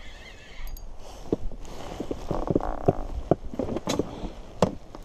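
Scattered knocks and clicks of gear being handled in an inflatable boat while a hooked fish is played on a float rod, with a brief rustle in the middle.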